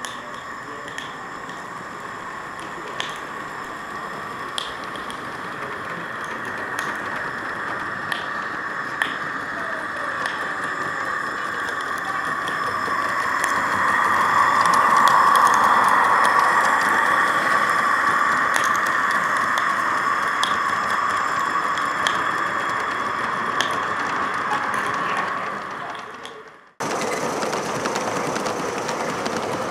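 G-gauge model locomotive pulling a log train along the track, a steady mechanical whine of its drive, with faint clicks from the wheels over the rails. It grows louder as the train nears, is loudest about halfway through, then eases off. Near the end the sound cuts abruptly to a model passenger train running steadily.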